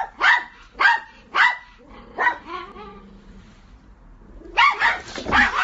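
Dog barking repeatedly in short, sharp barks, about two a second, fading to a lull around the middle and then a quick run of barks near the end.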